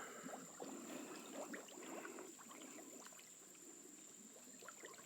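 Faint sloshing and squelching of pond water and mud as someone wades knee-deep in soft muck, with scattered small drips and splashes.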